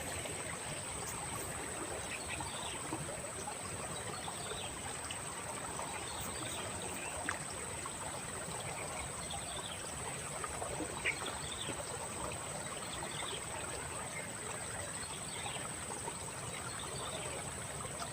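Steady wash of a flowing stream, with a thin high steady whine above it and a few faint scattered ticks.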